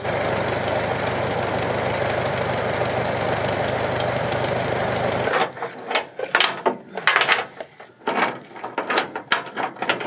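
Farmall M tractor engine running at a steady speed, stopping abruptly about five seconds in. Then a steel tow chain clinks and rattles in short, uneven knocks as it is wrapped around the truck's front bumper.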